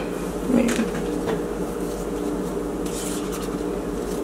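A spatula scraping cheesecake batter out of a cup into a springform pan, soft rubbing with a couple of light knocks about half a second and just over a second in. A steady low hum runs underneath.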